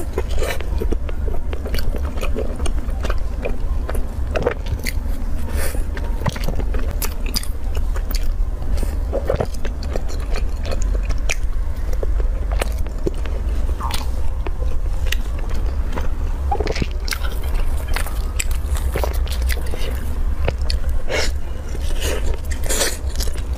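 A person eating soft, chilled, cream-filled buns (ice bread): bites, chewing and wet mouth smacks in irregular short clicks, over a steady low hum.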